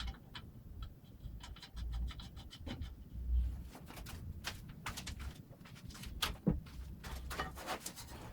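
Irregular clicks, knocks and scrapes of wrenches and metal stand parts being handled as a lathe stand is bolted together, with a louder thud about three and a half seconds in.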